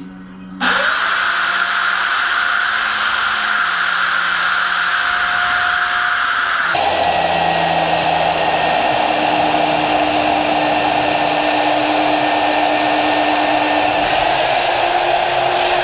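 Magnetic drill press starts up and runs, its annular cutter boring through steel plate, a loud steady motor noise. About seven seconds in the sound changes and the motor's tone drops lower, then holds steady.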